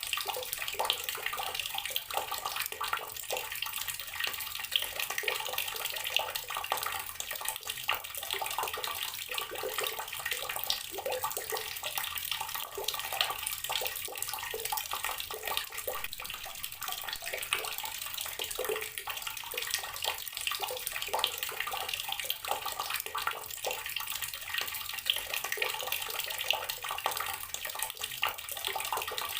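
Tap water running steadily into a water-filled container, a continuous dense splashing and bubbling with many small irregular drips and splashes.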